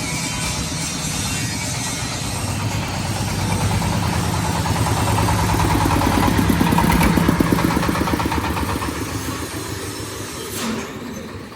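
Dong Feng diesel engine running a corn sheller. It grows louder toward the middle, then eases off.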